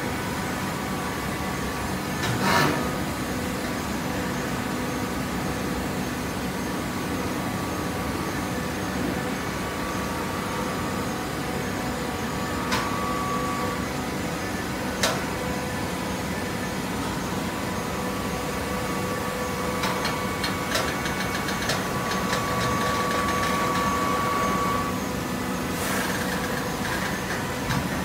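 TCM fully automatic horizontal baler running: a steady hydraulic hum with a thin whine, broken by a few sharp metal clanks, the loudest about two and a half seconds in and another near the end. The whine grows louder for several seconds past the middle.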